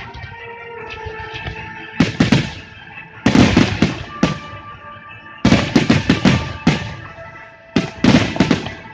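Aerial firework shells bursting in quick volleys of sharp bangs, a fresh cluster about every two seconds, with music playing underneath.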